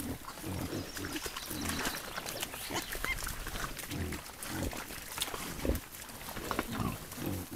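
Wild boar grunting repeatedly while rooting in a mud wallow, a string of short low grunts at irregular intervals, with scattered sharp clicks and one brief high chirp about three seconds in.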